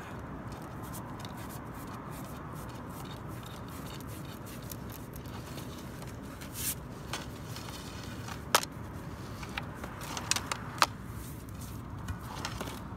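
Steel cable of a catch pole being worked loose, giving a few sharp metallic clicks and scrapes in the second half over a steady background hiss.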